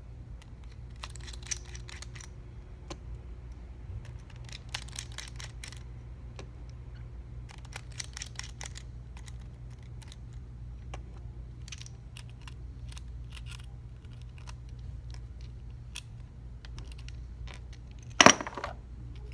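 Small repair tools clicking and tapping against an iPhone 6s in clusters of quick light clicks, with one much louder knock near the end, over a steady low hum.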